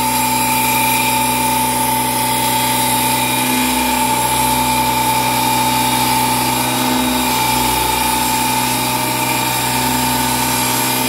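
Electric power tool working wood, its motor running steadily with a constant whine and hiss.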